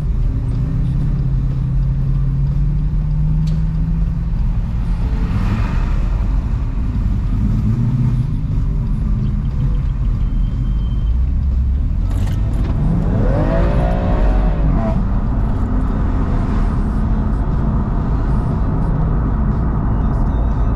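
Car engine pulling away and then cruising, heard from inside the car over steady road noise. About halfway through, a higher engine note rises and then falls for a couple of seconds.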